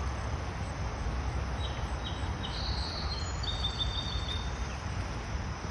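Outdoor ambience: a steady low rumble, with a bird's short high chirps and a quick ticking trill in the middle.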